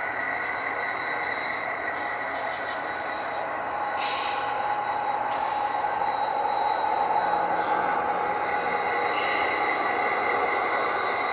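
Model diesel locomotives running on a model railroad layout: a steady whirring hum with a thin high whine, and short hisses about four seconds in and again about nine seconds in.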